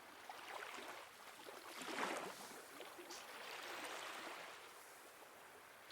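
Faint sea waves washing in and drawing back, one swell about two seconds in and a longer one around four seconds.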